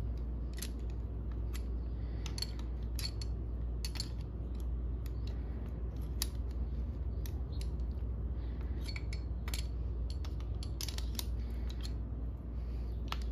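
Steel open-end wrenches clicking against each other and against the valve tappet and its lock nut as the lock nut is snugged down to hold the set valve lash. The sharp metallic clicks come irregularly, about one or two a second, over a steady low hum.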